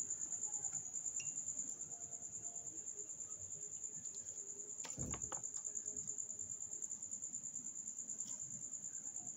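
A cricket chirping in a steady, high, rapidly pulsing trill, with one soft knock about five seconds in.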